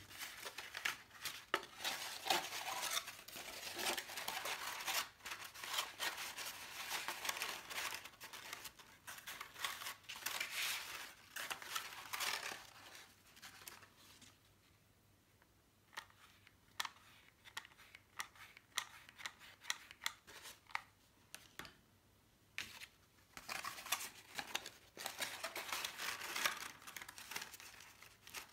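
Stiff cardstock paper petals being handled, bent and pressed together: rustling, crinkling and scraping of paper with many small clicks and taps, going quieter for a few seconds twice in the middle.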